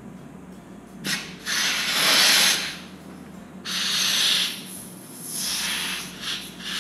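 Helium hissing out of a helium cylinder's nozzle into a clear TPU balloon as the nozzle is pressed and released. There are three bursts of about a second each, then a few short ones, and the balloon inflates.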